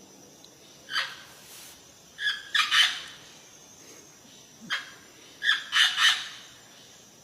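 Parrot squawking in short calls: one about a second in, a quick group of two or three just after two seconds, and another group of three or four between about five and six seconds.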